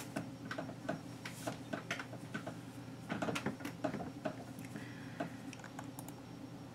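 Faint, irregular small clicks and light rustling, several a second and a little busier about halfway through, over a low steady room hum.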